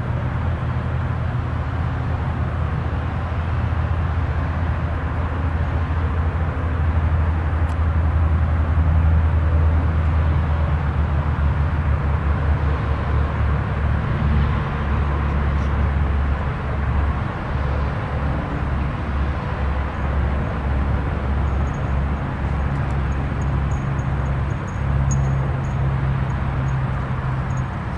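Steady low rumble with a light hiss, like vehicles running, rising and falling a little in level. Faint high ticks come in over it near the end.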